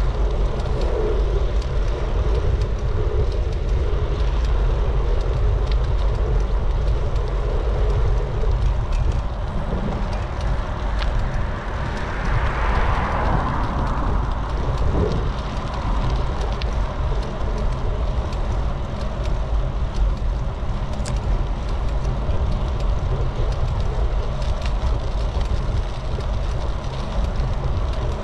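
Wind rushing over the microphone of a camera on a moving bicycle, a steady low rumble, with a car passing about halfway through, swelling and fading over a couple of seconds.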